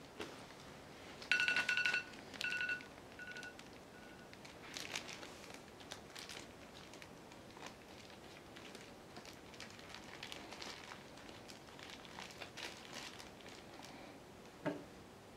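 A phone's countdown timer alarm going off: one beep about a second in, then three shorter beeps that fade out. A plastic bag then crinkles and rustles as it is handled, with a short knock near the end.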